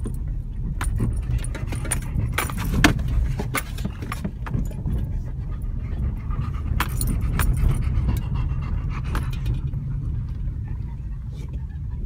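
A car driving slowly along a rough dirt track: a steady low rumble of the engine and the tyres on the dirt, with frequent loose clicks and rattles as it jolts over the ruts.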